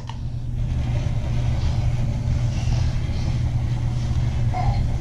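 Toy remote-control car's small electric motor and gears running steadily as it drives backwards.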